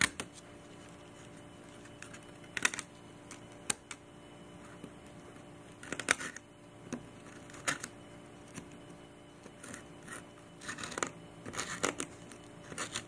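Craft knife blade cutting through stretched canvas: short scratchy slices at irregular intervals, a second or more apart, with a quick cluster of cuts near the end.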